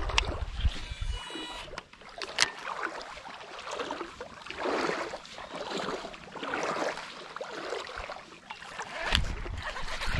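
Water swishing around the legs of a person wading through a shallow creek, swelling and fading every couple of seconds with the strides. A sharp click sounds about two and a half seconds in.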